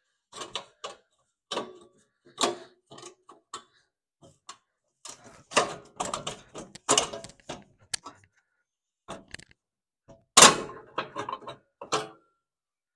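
Irregular metallic clicks, clinks and clunks from hands working loose parts around the Kawasaki V-twin engine's carburetor and shroud. The loudest clunk comes about ten seconds in.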